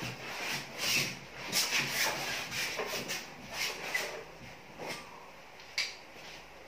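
Quick, irregular strokes of paint being brushed and dragged across a large canvas in action painting, with one sharp tap about six seconds in.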